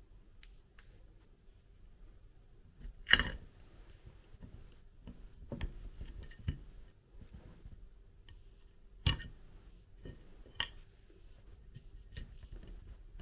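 Metal knife and fork clinking and scraping on a ceramic plate while cutting through a custard pudding tart: a handful of sharp clinks, the loudest about three seconds in and another about nine seconds in.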